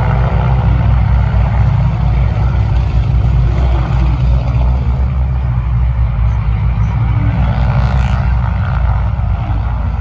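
Several Grumman TBM Avengers' Wright R-2600 fourteen-cylinder radial engines running together just after start-up, a loud, steady low rumble.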